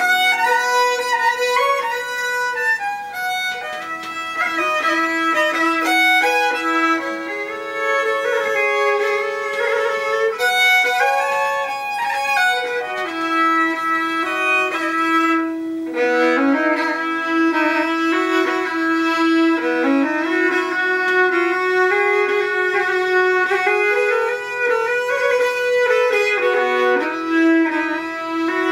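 Hardanger fiddle played solo with a bow: a lively folk melody in double stops over a held lower note, with the five sympathetic strings under the fingerboard ringing along and giving a rich, resonant tone.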